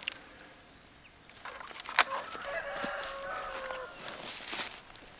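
A rooster crowing once, about a second and a half long, just after a sharp snap about two seconds in; a brief rustle follows.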